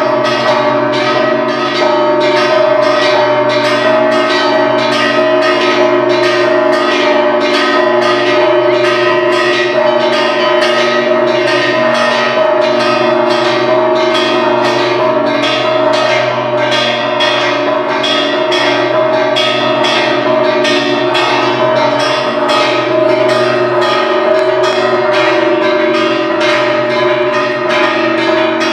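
Church bells of a parish church ringing continuously, struck in a steady rapid rhythm of about two strokes a second, their tones ringing on and overlapping between strokes.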